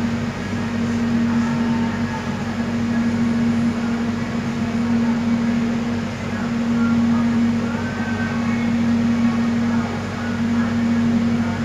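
Soekarno-Hatta airport electric train carriage running at speed, heard from inside: a steady low hum over an even rushing noise.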